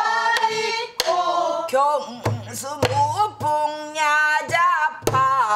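A woman sings a danga line in pansori style, holding long notes with wide vibrato, while a buk barrel drum is struck with a stick a few times, sharp single strokes marking the beat.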